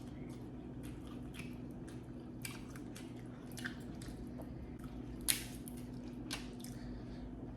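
Close-up wet eating sounds from a seafood boil: squishing, lip-smacking and chewing, with a run of short clicks, the sharpest about five seconds in. A steady low hum runs underneath.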